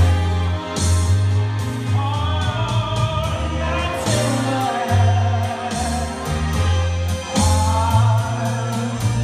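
Live singing into a microphone over a backing track with a steady bass line and drums, played through a PA system and picked up by a phone's microphone in the crowd.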